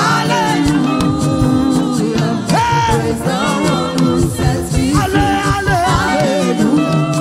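Loud gospel praise music: a singing voice over a band with sustained instrumental tones and a steady beat.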